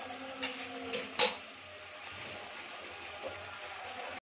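A metal spatula clinks against a metal kadhai three times in the first second or so, the third the loudest. Chicken cooking in the pan gives a low, steady sizzle underneath.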